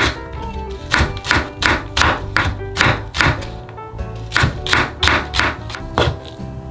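Chef's knife slicing a green onion on a wooden cutting board: sharp knocks of the blade hitting the board in an even rhythm, about two to three a second, over soft background music.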